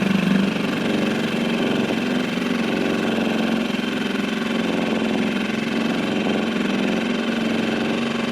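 Small Seatan outboard motor running steadily at low speed, an even drone with no change in pitch.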